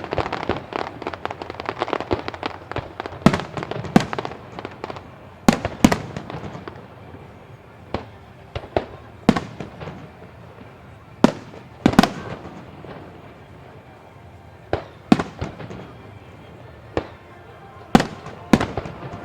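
Aerial firework shells bursting: a dense rattle of rapid cracks for the first few seconds, then single sharp bangs every second or two, some in quick pairs.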